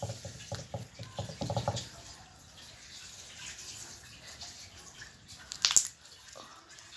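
Homemade slime worked by hand to make it click, with wet clicking and popping sounds: a quick run of small clicks in the first two seconds, then softer squishing, and one sharper, louder pop near the end.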